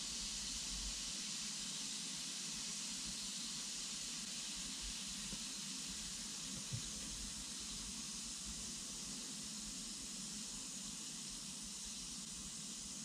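Lush Lucky Cat bath bomb fizzing out in water: a steady soft hiss of its foam's tiny bubbles popping, slowly fading as the fizz dies down. One faint tap about halfway through.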